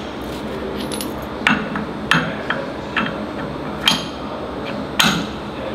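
About six sharp metallic clacks, spaced irregularly, each with a short ring: metal knocking on metal as the PCD tooling plates on the grinding head of a Concrete Genie concrete floor grinder are handled and fitted.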